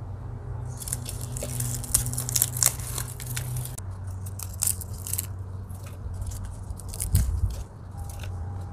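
Dry dead amaryllis leaves crackling and crunching as a hand pulls them out of a pot of gravelly potting mix, a run of small, irregular crackles. A steady low hum runs underneath.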